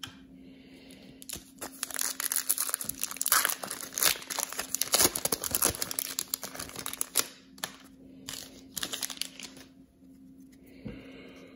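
The wrapper of a Panini Prizm football card pack being torn open and crumpled in the hands: dense, crackly crinkling for several seconds. Shorter crinkles follow as the cards are pulled out, and it quiets near the end.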